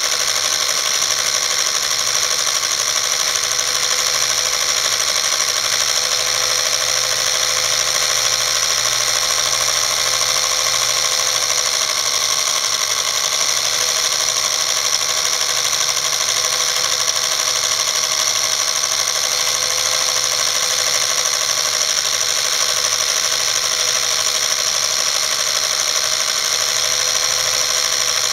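Home-movie film projector running, a steady mechanical whir with no pauses.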